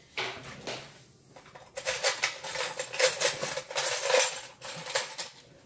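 Spatula scraping around a saucepan of thick caramel, a quick run of repeated strokes lasting about three seconds from about two seconds in.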